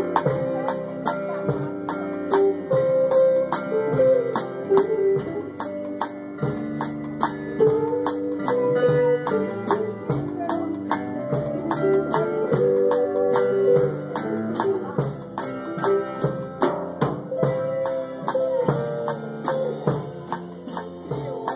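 Live band playing an upbeat dance tune: guitar and a wandering melody line over a quick, steady percussion beat with cymbal and shaker-like strokes.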